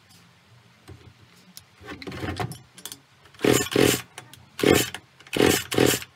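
A Hyundai 650 Turbo two-stroke chainsaw being pull-started: about six quick tugs on the recoil starter cord, each a short whirr, with the engine turning over but not catching.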